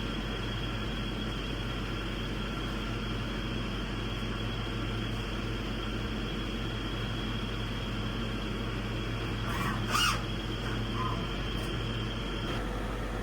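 Walter Helitronic Power Regrinder CNC tool grinding machine running: a steady hum with a high tone that cuts off near the end. A short squeal comes about ten seconds in.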